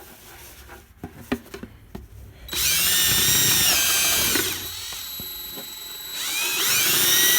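Power drill boring holes into a coffee can. A few light handling clicks come first. The drill starts up with a high whine about two and a half seconds in, eases off for a second or two, then runs hard again near the end.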